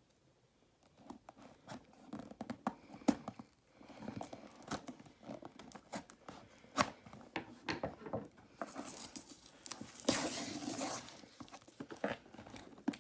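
Scissors scraping and cutting through packing tape on a cardboard shipping box, with many short scratchy scrapes and a louder stretch of tape tearing from about nine to eleven seconds in.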